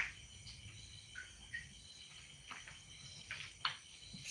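Quiet evening background of faint, steady cricket trilling, with a few soft drips and small splashes of water as the wet hatching net is set into a tank.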